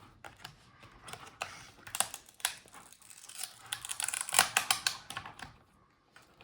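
Plastic front bezel of a Dell G15 5515 laptop display being pried off by hand: a run of sharp clicks and crackles as its clips let go, busiest a little past halfway.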